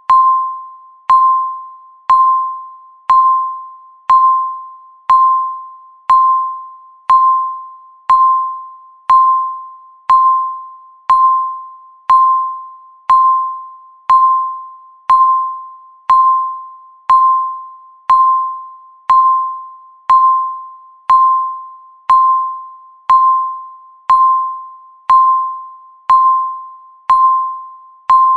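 Countdown timer beep sounding once every second: a single pure electronic tone, sharp at the start and fading out quickly, repeated evenly about 28 times, each beep marking one second left.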